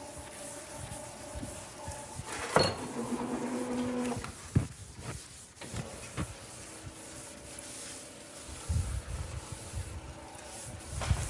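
Chalk scratching and tapping on a blackboard as formulas are written, loudest about two and a half seconds in, where a sharp tap opens a longer stretch of scratching. Several more sharp clicks follow, and there are low thuds near the end.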